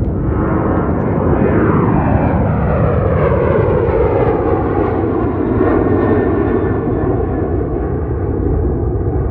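Boeing 737-800 jet, with CFM56 turbofans, taking off and passing close by under takeoff thrust, its engine whine gliding down in pitch as it goes past over a loud, steady rumble.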